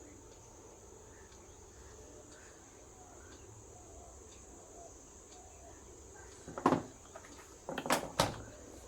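Faint low background, then three short sharp knocks or clacks: one about two-thirds through and two close together near the end.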